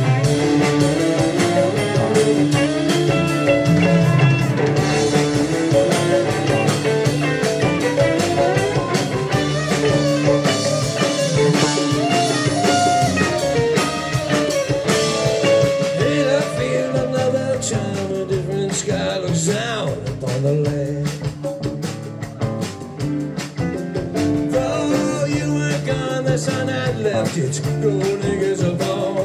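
Live rock band playing an instrumental passage: an electric guitar plays a lead line with bending notes over keyboards and drums.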